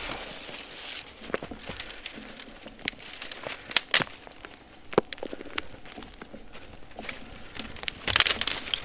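Small fire of dry twigs and split kindling catching, with sparse crackles and a few sharp pops; a brief louder rustle comes near the end.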